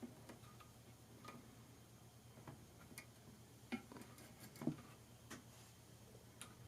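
Faint, irregular clicks and light taps of small parts and tools being handled while wiring inside an amp chassis, over a low steady hum.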